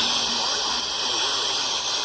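Steady, loud radio static hiss from weak broadcast reception, with faint, garbled speech buried underneath.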